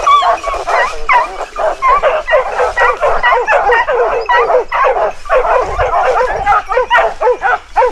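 Several hunting dogs barking rapidly and without a break, their barks overlapping, as they bay a wild boar they hold at bay in a thicket.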